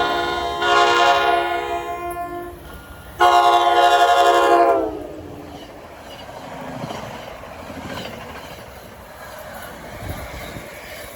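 Train horn sounding in loud blasts: one ends about half a second in, a second one fades out near two and a half seconds, and a third starts about three seconds in and cuts off sharply near five seconds. Afterwards the train's running noise carries on quieter.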